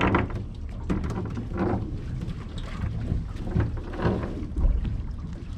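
Wind buffeting the microphone on a fishing boat over a steady low rumble, with scattered knocks and rattles of handling on deck.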